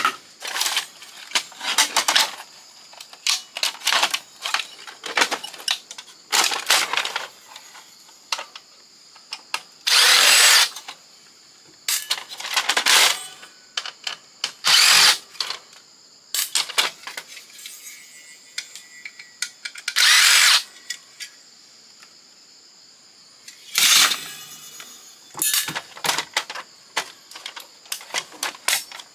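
Cordless power drill or driver running in short bursts of about half a second to a second, over and over, as screws are backed out of an old Canon fax machine being dismantled for scrap.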